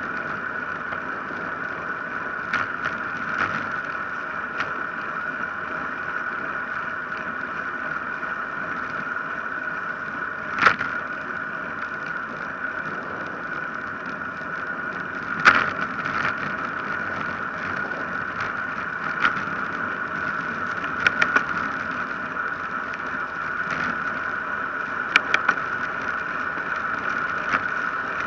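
Steady rushing wind and tyre noise from a road bike coasting fast downhill, picked up by an action camera riding on the bike, with a high steady hum in it. A handful of short sharp knocks break through.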